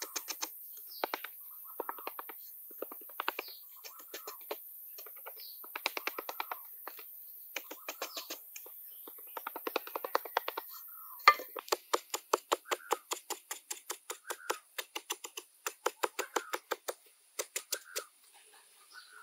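A hoe blade chopping and scraping into hard, dry soil in quick runs of sharp strikes. The strikes get louder and crisper about eleven seconds in.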